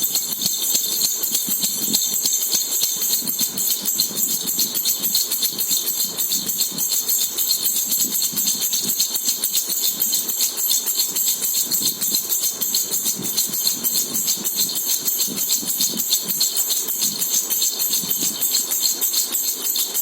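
A jhunjhuna baby rattle shaken steadily and rapidly, giving a continuous bright metallic jingling and clacking.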